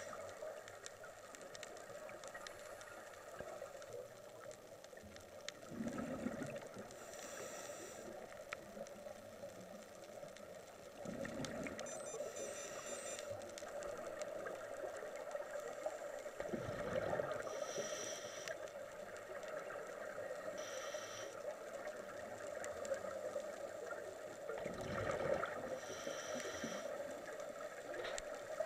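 Underwater scuba-dive sound: a steady drone with four low bubbling rumbles of exhaled air from a diver's regulator, each followed shortly by a brief hiss of inhaling through the regulator.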